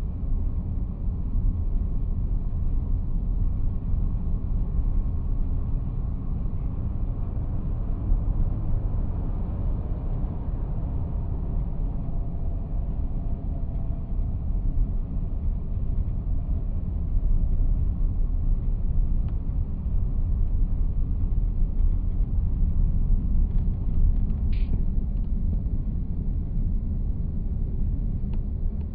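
Steady low rumble of a car driving along a highway, heard from inside the moving car: road and engine noise.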